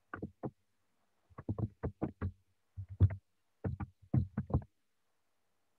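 Computer keyboard typing: about twenty sharp keystrokes in short, irregular bursts, then the typing stops.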